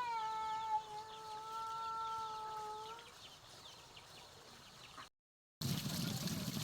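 A long animal call held on one pitch, stepping down slightly just under a second in and ending about three seconds in. After a short silent cut comes steady low noise.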